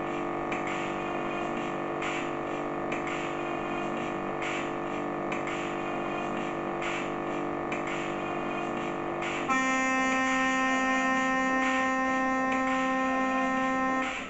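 Electronic keyboard drone: a chord of steady held tones under a faint regular pulse. About nine and a half seconds in it switches suddenly to a single louder held note, which cuts off just before the end.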